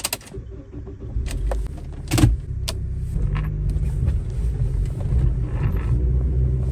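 A car key clicking in the ignition, the engine starting about two seconds in, then the car running steadily as it drives off.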